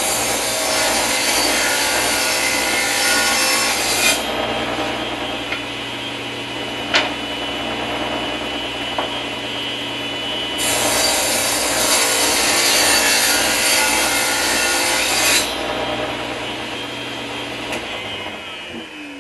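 Table saw running and ripping two thin wood strips, one after the other: each cut is a few seconds of loud blade-through-wood noise over the saw's steady running. Near the end the saw winds down with a falling tone.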